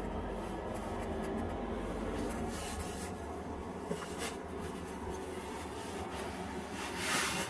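Car cabin noise while driving slowly: a low, steady engine and road sound, with a brief click about four seconds in and a short rush of hiss near the end.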